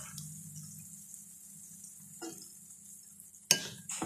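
Egg and potato omelette mixture cooking in a frying pan with a faint sizzle over a low hum. A small knock about two seconds in and a sharp knock near the end, the loudest sound, followed by a lighter one.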